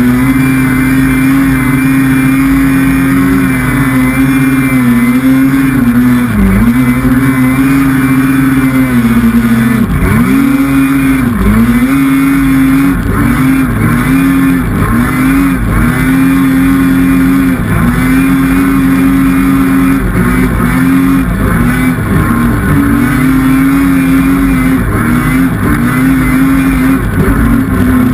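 Polaris snowmobile engine running hard at high revs, its pitch dropping and swinging back up many times as the throttle is eased and reapplied.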